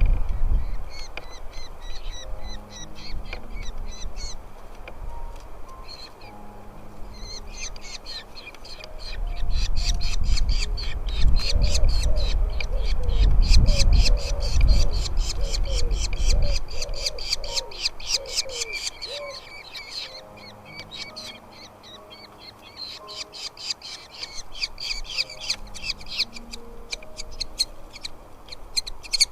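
Nestling birds begging for food, a rapid run of high repeated chirps, several a second, that swells and fades twice. A low rumble comes in partway through and dies away again.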